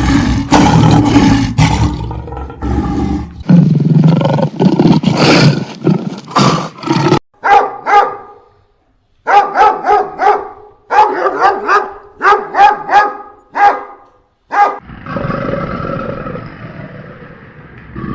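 A run of wild and domestic animal sounds. First come long, deep roars of big cats over the first seven seconds. Then a dog barks repeatedly in short sharp barks, and a different steady rumbling sound starts near the end.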